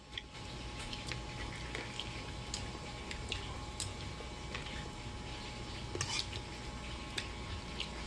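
A person eating thick chocolate rice porridge with a metal spoon: scattered sharp clicks of the spoon against the bowl and wet mouth sounds of eating, over a steady faint hum.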